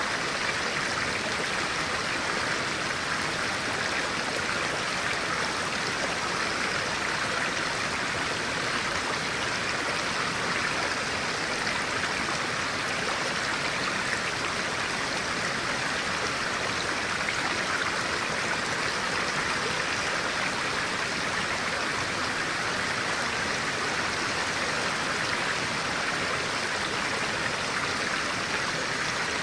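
A clear-water stream flowing steadily, an even, unbroken rush of water.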